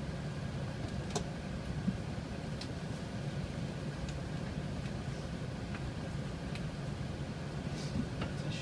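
Steady low cabin rumble inside an Airbus A380 taxiing with its engines at idle, with a faint steady high tone and a few small clicks.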